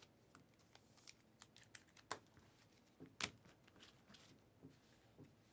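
Faint handling of trading cards: scattered soft slides and clicks as cards are flipped through, with two sharper clicks about two and three seconds in.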